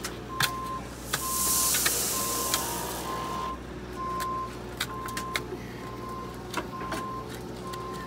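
A reversing alarm beeping steadily at one pitch, about one beep a second, over the scrape and clink of steel shovels and a digging bar biting into stony dirt. A rush of hiss lasting about two seconds comes a second in and is the loudest sound.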